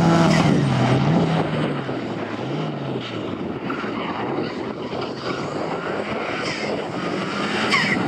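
Subaru Impreza WRX STI's turbocharged flat-four engine driven hard on a circuit, its pitch rising and falling with throttle and gear changes. It grows fainter through the middle and louder again near the end as the car comes back toward the camera.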